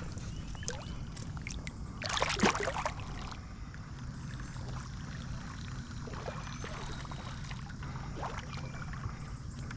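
Steady rushing of creek water, with one loud splash about two seconds in that lasts about a second, and a few small clicks and knocks.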